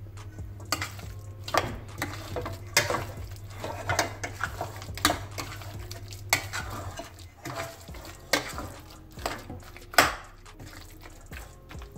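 Thick koottu curry being stirred in a stainless steel pot: the spoon scrapes and knocks against the pot about once a second. A low steady hum underneath stops about seven seconds in.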